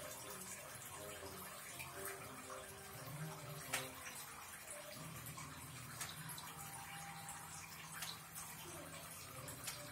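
Faint wet squelching and rustling as a hand mixes chopped raw papaya and soaked gram inside an aluminium pressure cooker, with a few light clicks of pieces knocking the metal.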